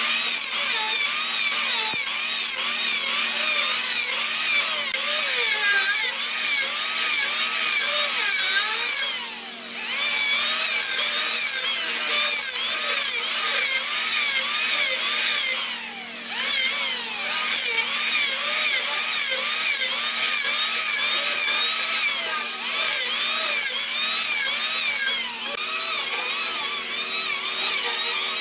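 A hand-held power tool cutting or abrading hardwood. Its motor whine keeps sliding up and down in pitch as the tool is worked against the wood, and it eases off briefly twice.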